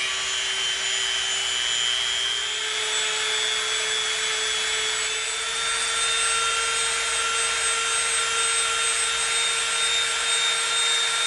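Handheld rotary tool running steadily at high speed, its small bit grinding down a bump on an EVA foam tube. The whine steps up slightly in pitch about two seconds in.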